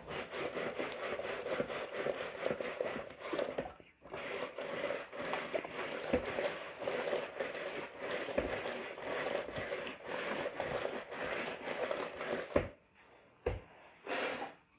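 Water swishing and churning in a small homemade washing container as it is agitated to wash the load. It comes in two spells with a short break about four seconds in, and stops about two seconds before the end, leaving a few light knocks.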